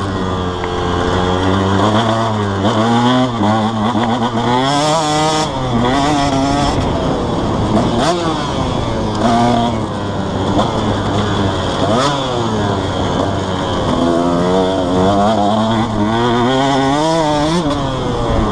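Husqvarna TC 125 single-cylinder two-stroke motocross engine under way, its pitch rising and falling again and again as the throttle opens and closes and the rider shifts gears.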